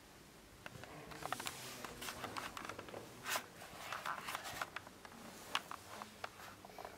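Rustling, scraping and small clicks of clothing and objects being handled, starting about a second in and thinning out near the end.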